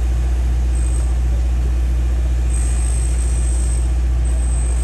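Diesel engine of heavy construction machinery running steadily with a deep, even hum, while a faint high whine comes and goes twice.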